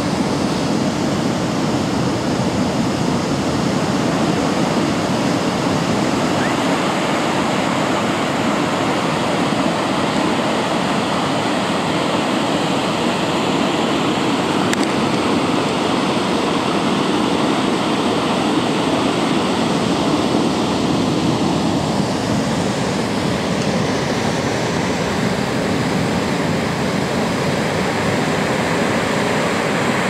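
Niagara Falls: the steady, even rushing of a great volume of falling water.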